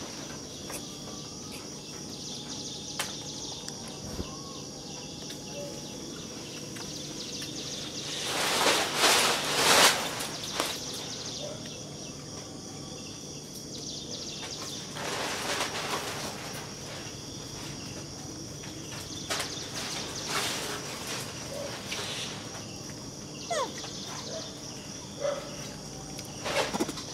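Outdoor ambience dominated by a steady high-pitched insect drone, broken by short bursts of rustling noise, the loudest about eight to ten seconds in and another about fifteen seconds in.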